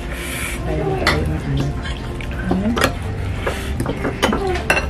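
A metal fork and spoon clinking and scraping against a glass bowl of noodles while eating, with several sharp clinks spread through, over a steady low hum.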